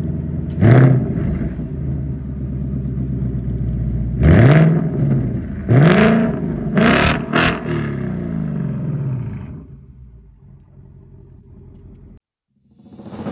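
Ford Mustang Dark Horse 5.0 V8 through an H-pipe exhaust, idling with a deep, even burble. It is revved five times: a quick rev, two longer revs, then two short blips in quick succession, each rising and falling back to idle. The engine sound fades away near the end.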